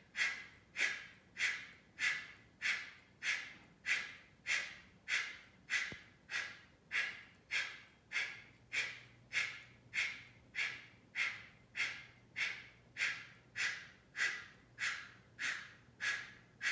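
Kapalabhati breathing: a man's sharp, forceful exhalations through the nose, each pumped by pulling the belly in. The puffs are evenly paced, just under two a second, each starting suddenly and fading quickly.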